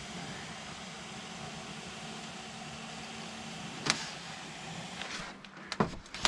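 Cooling fan of a VD-200 air-cooled hot knife running with a steady whir and faint hum while the heated blade cuts through XPS foam board. A sharp click comes about four seconds in. The whir stops a little after five seconds in, followed by a few knocks as the knife is handled.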